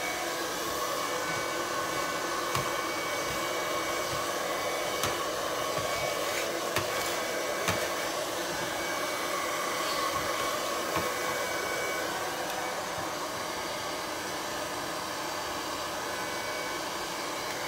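Household hair dryer blowing steadily on hot, held against thin peel-and-stick wallpaper to heat and stretch it so wrinkles and air bubbles flatten out. A few light taps come through around the middle.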